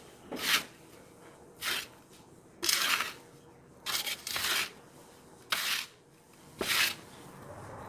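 Hands mixing dry breadcrumbs and flour in a large metal pan: the crumbs rustle and sift in short bursts, about six of them, each as a handful is scooped and let fall.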